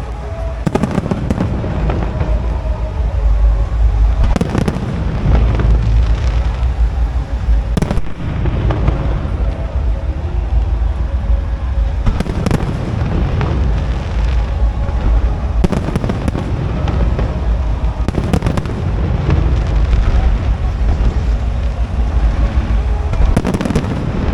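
Fireworks display: fireworks bursting one after another, a continuous low rumble of booms broken by sharp cracks every few seconds.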